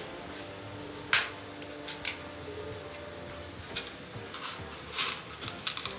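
A few sharp, light clicks and taps of kitchen utensils and steel dishes being handled, spaced irregularly, over a faint steady hum.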